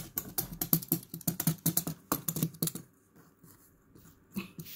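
Rapid clicking from a yellow snap-off utility knife, its blade slider and blade clicking and tapping against a cardboard box, several clicks a second. After about three seconds it stops and only faint sound remains.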